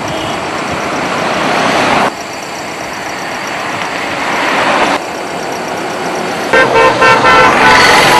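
Road traffic noise rising and falling, broken by abrupt cuts, then car horns honking in several short blasts over the last couple of seconds.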